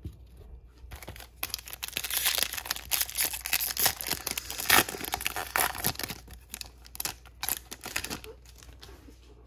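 A foil trading-card pack wrapper being torn open by hand and crinkled, a dense crackle that starts about a second in and dies down near the end, with one sharper rip in the middle.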